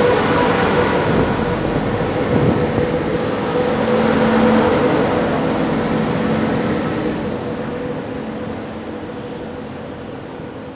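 Passenger train hauled by an OSE class 220 ADtranz diesel locomotive passing close by: a loud rush of wheels on rail with a steady whining tone, fading away as the last carriage clears, from about seven seconds in.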